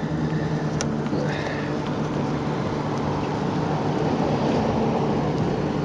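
A motor vehicle's engine running steadily as it passes along the street, with one sharp click about a second in.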